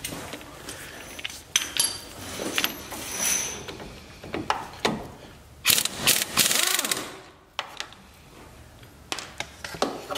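Handheld pneumatic air tool with a 3/4-inch socket run in short bursts to break loose and spin out rusty brake caliper guide pin bolts, the longest and loudest burst about six seconds in. Sharp clicks and knocks of the socket and tool against the caliper bracket come between the bursts.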